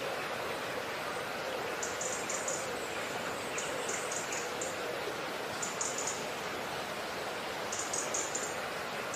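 Short, high-pitched chirps in quick groups of three or four, recurring every one to two seconds over a steady hiss, like a background nature ambience.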